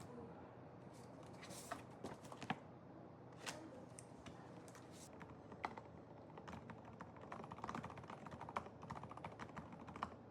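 Typing on a Monstargear Ninja 108SE keyboard: a few scattered keystrokes at first, then a fast, continuous run of key clicks in the second half.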